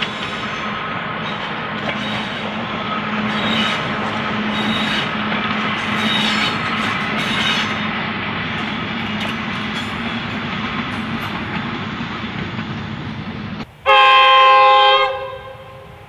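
Brill diesel-electric railmotors (DERMs) running along the line: a steady drone with a low hum. After a cut about 14 s in, a railmotor sounds one loud horn blast of about a second and a half.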